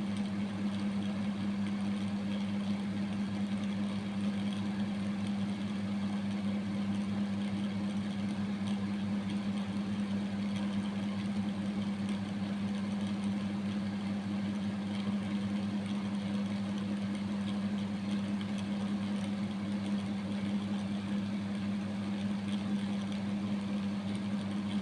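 A motor running steadily with an unchanging low hum.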